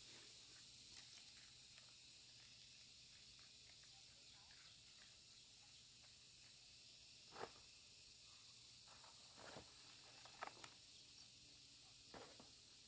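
Near silence outdoors: a faint, steady, high insect hiss, broken by a few soft clicks and rustles in the second half.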